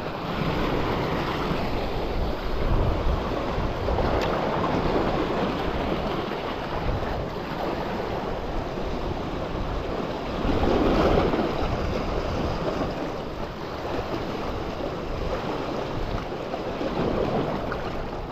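Sea waves washing against shoreline rocks, with wind buffeting the microphone. The wash swells and eases in surges, loudest about eleven seconds in.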